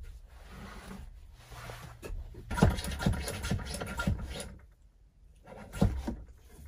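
Hand plunger pump of a Sealey VS820 brake bleeder being worked in a run of quick strokes, building pressure in its reservoir to about 10 PSI. Soft scraping comes first; the strokes start about two and a half seconds in, with one more near the end.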